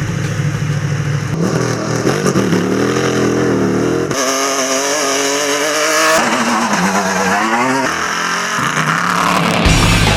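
Rally-raid vehicle engines revving hard, the pitch climbing and dropping again and again as they accelerate and shift, in a string of short clips that change abruptly every couple of seconds.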